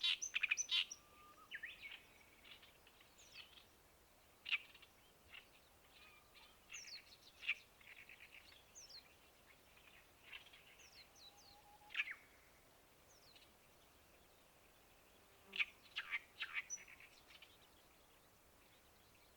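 Small birds chirping in irregular bursts of short, sharp notes and quick sweeps, with gaps of faint background hiss between them and a last cluster near the end.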